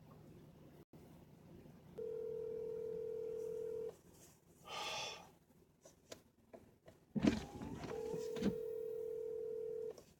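North American telephone ringback tone over a phone's speaker: a steady two-second ring heard twice, about four seconds apart, meaning the call is ringing at the other end and not yet answered. A short swish comes about five seconds in and a sharp thump just before the second ring.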